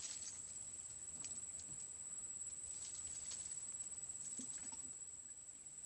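A steady high-pitched insect trill, like crickets, runs throughout, with scattered light ticks and rustles.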